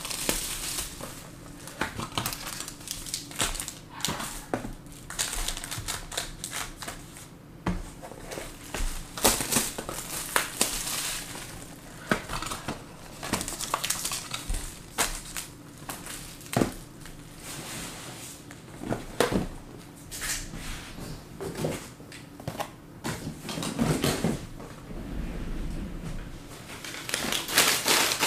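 Packaging being handled: crinkling plastic wrap and irregular sharp clicks and knocks of cardboard as sealed trading card hobby boxes are unwrapped and opened.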